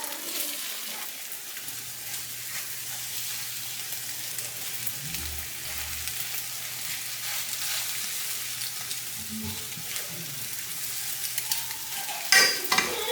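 Food frying in a pan with a steady sizzle, with a faint low hum under it for most of the stretch. A brief, louder pitched sound, like a voice, comes just before the end.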